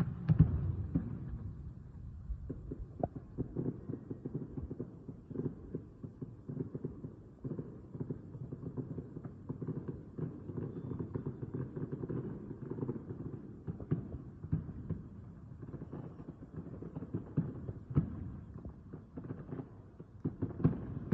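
Distant aerial fireworks bursting in a dense, continuous barrage of pops and crackles, with the loudest burst just after the start.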